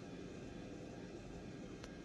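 Steady low background rumble, with one faint click near the end.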